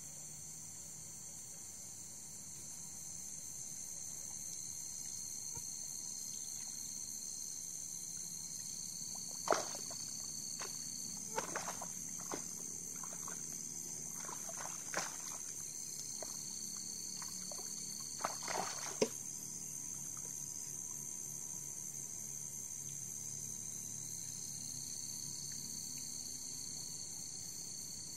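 Crickets and other night insects chirring steadily, with a thinner, higher trill from another insect coming and going. Through the middle stretch, about eight sharp splashes at the water's surface, which the angler takes for schooling barbs (silver or golden barb) gathering to spawn.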